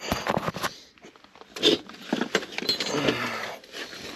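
Rustling, scraping and clicking as a person shifts about and handles things in a cramped attic while searching for a dropped wire, with a quick flurry of clicks in the first second.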